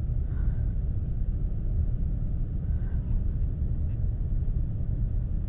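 Steady low rumble with no clear pitch, running evenly through the whole stretch.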